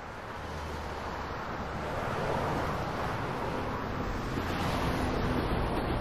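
A steady ambient rumble and wash of noise, growing louder over the first two seconds or so and then holding steady.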